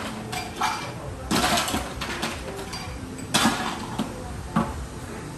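Café bar work sounds: two short bursts of hiss, about a second and a half in and again at about three and a half seconds, with scattered knocks and clinks of equipment.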